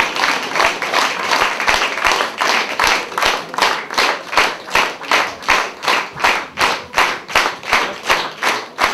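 Audience applause that settles into rhythmic clapping in unison, nearly three claps a second.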